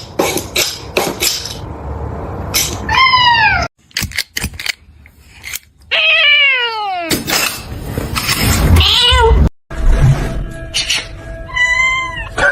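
A domestic cat meowing about four times, several calls bending up then falling in pitch, one long falling meow about six seconds in. Sharp clicks and knocks come near the start and again about four to five seconds in.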